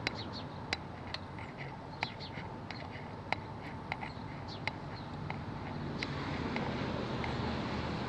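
Sharp, irregular clicks and light metallic ticks as a downhill mountain bike's crank and pedal are worked on by hand, over steady outdoor background noise that grows louder near the end.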